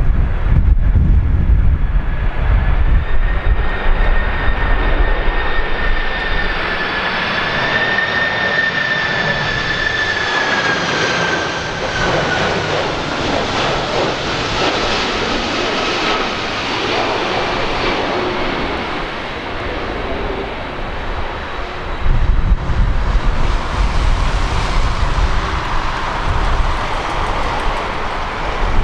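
Jet freighter on landing approach passing close by: a loud engine whine whose pitch slowly drops as it goes past. Gusty wind buffets the microphone at the start and again about three-quarters of the way through.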